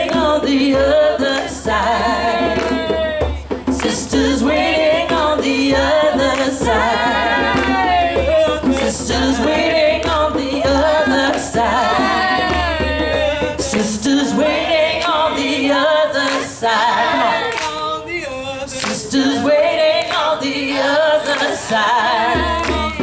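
Several women singing a chant-like song together in harmony, with hand strokes on djembe drums.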